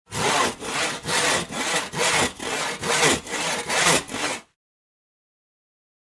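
Hand saw cutting in quick, even back-and-forth strokes, about ten strokes at a little over two a second. It stops abruptly about four and a half seconds in.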